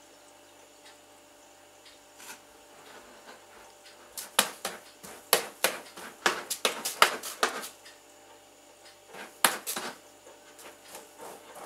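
A cat digging in the litter of a plastic litter box with its paws: a quick run of scratchy scrapes from about four seconds in to nearly eight, then a couple more about nine seconds in.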